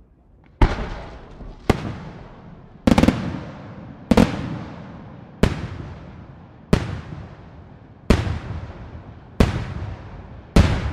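Aerial firework shells bursting overhead in a steady sequence: nine loud bangs, about one every second and a bit. Each bang is followed by a long echoing rumble that fades before the next.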